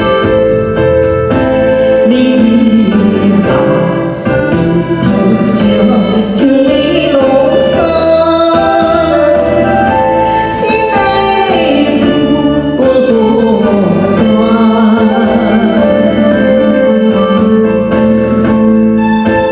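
A man singing a Hokkien (Minnan) pop ballad over steady instrumental accompaniment.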